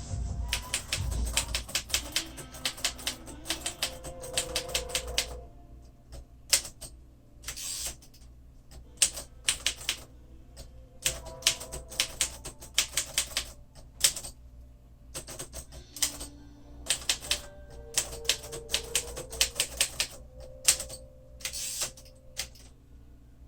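A 1948 Royal Quiet Deluxe manual typewriter being typed on, with its touch control slid to the hardest, most taut setting. Runs of rapid key strikes come in bursts with short pauses between them.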